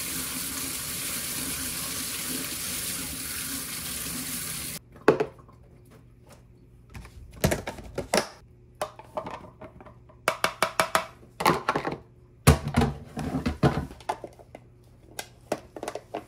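Kitchen tap running into a stainless-steel sink over a plastic colander of cherry tomatoes being rinsed, shut off about five seconds in. Then a string of short knocks and clatters as the plastic colander and other things are handled at the sink.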